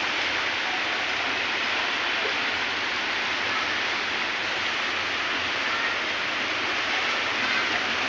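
Steady, unbroken rushing noise of heavy rain and floodwater flowing across a flooded street.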